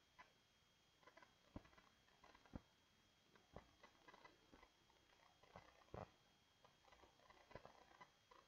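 Near silence with faint, scattered clicks of a computer mouse, about one every second or so.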